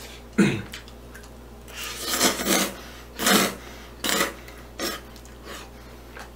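Metal chopsticks scraping and clinking against a nonstick frying pan as jajang noodles and rice cakes are picked up, in several short, separate strokes.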